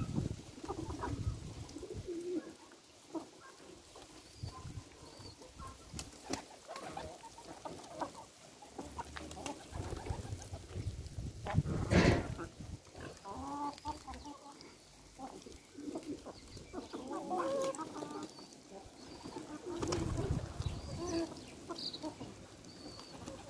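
Domestic hens clucking in short, scattered calls while feeding, with a few sharp clicks and one louder burst about halfway through.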